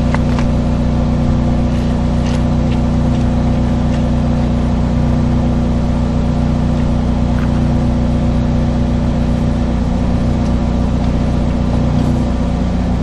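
Sewer jetter's engine and pump running steadily at a constant, loud drone while it drives water down the line to propel the inspection camera.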